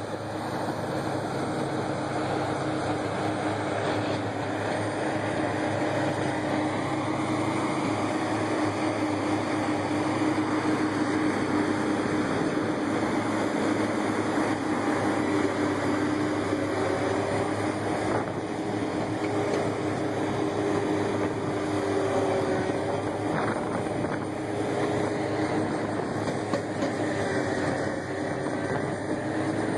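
Heavy machinery running steadily under load: a tractor or carrier engine driving a Soil Hog rotary soil-milling attachment. A few held tones shift slightly in pitch as the load changes.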